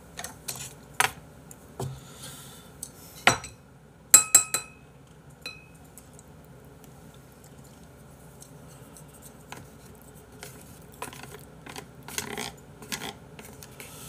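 Metal spoon and chopsticks clinking and tapping against dishes and food containers, with scattered light clicks. About four seconds in come three quick, loud, ringing clinks.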